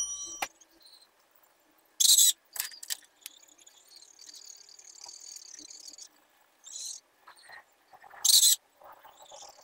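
Felt-tip marker scratching across paper in coloring strokes: two short, louder scrapes about two seconds in and near the end, with a quieter stretch of scribbling between them.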